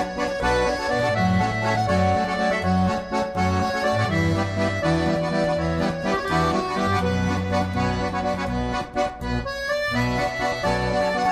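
Background music led by an accordion, over a bass line that moves from note to note.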